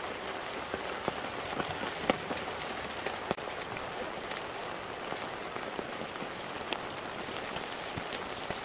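Food frying in a hot pan: a steady sizzle full of small sharp crackles and pops.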